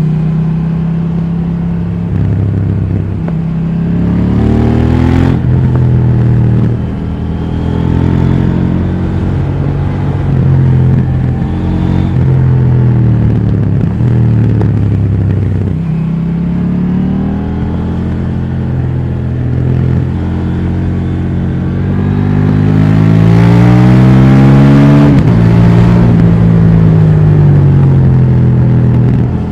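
KTM 790 Duke's parallel-twin engine through its stock exhaust, accelerating and easing off repeatedly, its pitch rising and falling with the revs. Late on comes the longest and loudest pull, rising for about three seconds before the revs drop sharply.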